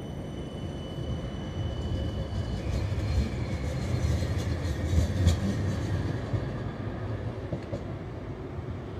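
CAF Urbos 3 light-rail tram pulling away and running off along the track: a low rumble of wheels on rail with the electric drive's whine, and a few clicks over the rail. It is loudest about five seconds in, then fades as it recedes.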